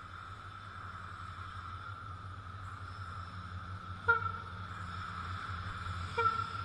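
WDG4 diesel-electric freight locomotive running with a steady low rumble that grows slowly louder, sounding two short horn toots about four and six seconds in.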